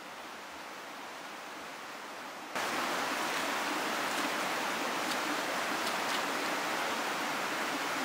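Steady outdoor rushing noise that jumps louder about two and a half seconds in, with faint swishes of footsteps through tall grass while it runs.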